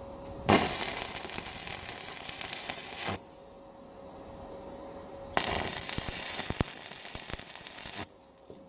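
Arc welding on steel bar: two welds of about two and a half seconds each, the arc crackling and sputtering as it is struck, then cutting off abruptly.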